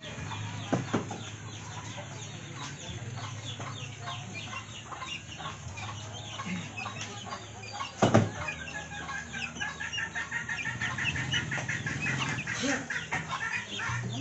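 Backyard fowl clucking over a steady low hum, with a sharp knock about eight seconds in and a smaller one near the start.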